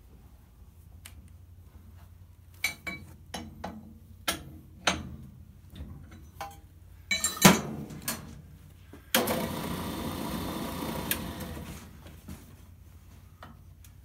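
Sharp metal clanks and clinks as a brake lathe's steel arbor shaft and cones are handled and fitted, the loudest about seven and a half seconds in. This is followed by about three seconds of steady rushing noise.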